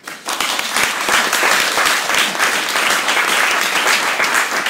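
Audience applauding: many people clapping at once, starting suddenly and keeping up loudly.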